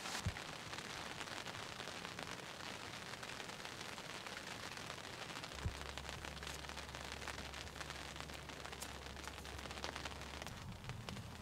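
Rain pattering steadily, many small drops ticking on leaves and gear around the microphone. From about six to ten seconds in, a low rumble runs under it.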